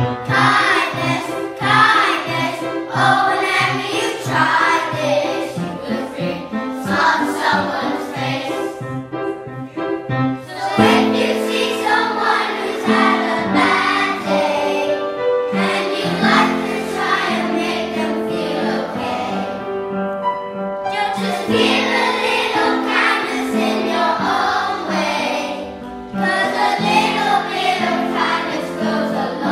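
A group of young children singing together in unison, accompanied by an upright piano.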